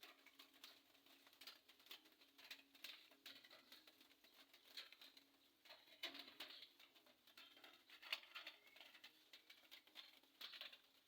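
Near silence: faint, irregular ticks and patter over low background noise.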